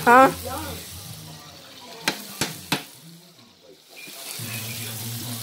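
Hamburger patties sizzling as they fry in steak sauce and grease on a sheet pan, with three sharp taps of a metal spatula on the pan about two seconds in. A short vocal sound at the very start.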